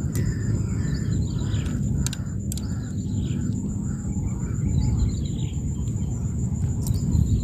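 Open wetland ambience: a steady low rumble, small birds chirping, and a steady high-pitched insect trill, with a few sharp clicks as hands handle the hook and fishing line.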